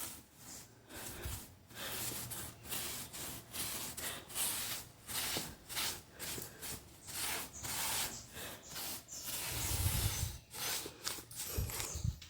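Brush scrubbing back and forth over a wall, sweeping dust and debris out of an opened-up crack: a quick series of scratchy brushing strokes, about two or three a second, with a couple of low bumps near the end.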